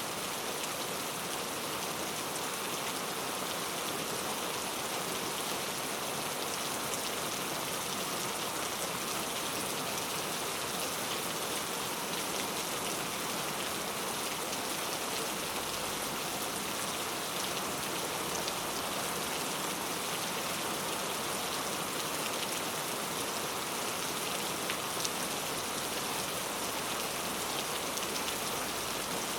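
Steady rain falling, a constant hiss of rain with fine drops pattering on a surface.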